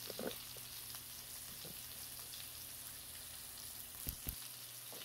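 Redfish fillets frying in butter in a cast-iron skillet: a faint, steady sizzle. Two soft knocks about four seconds in.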